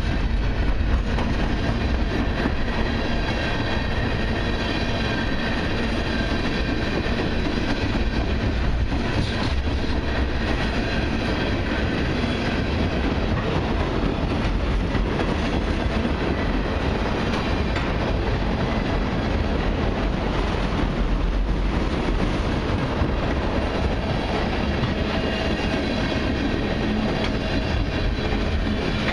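Freight cars of a long mixed freight train, gondolas and tank cars, rolling past: a steady rumble and clatter of steel wheels on rail, with faint thin high tones above it.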